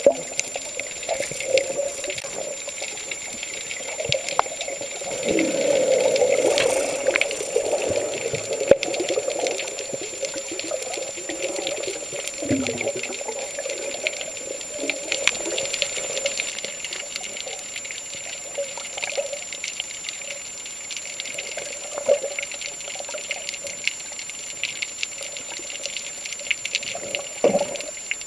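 Water sounds: a continuous bubbling, crackling wash with many small clicks, swelling louder about five to seven seconds in, over a thin steady high-pitched whine.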